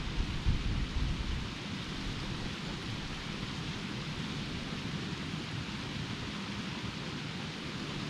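Steady outdoor hiss with irregular low rumbling, heaviest in the first second or so: wind buffeting the microphone.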